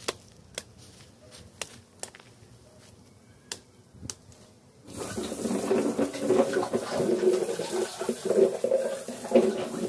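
A few sharp snaps, then from about halfway a garden hose spraying water onto pigs and the concrete floor of their pen: a loud rushing spray with splashing.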